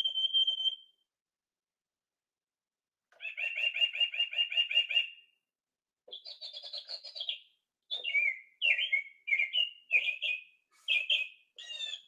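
Singing bird wall clock playing recorded songs of several different birds in turn through its small speaker as its hour buttons are pressed. A short whistle ends about a second in; after a pause comes a fast even trill of about eight notes a second, then a higher call, then a run of quick down-slurred notes.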